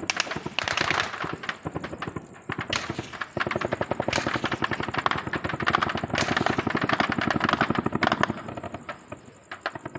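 Sustained automatic gunfire: overlapping bursts of machine-gun and rifle fire, with one long, rapid, evenly spaced burst from about three to eight seconds in.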